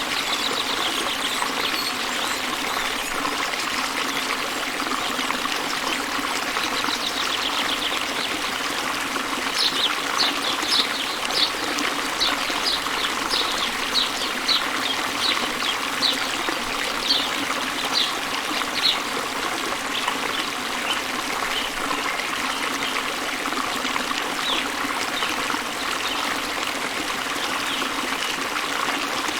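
Small waterfall pouring into a river: a steady rush and trickle of water. A bird repeats short high notes, roughly two a second, for about ten seconds in the middle.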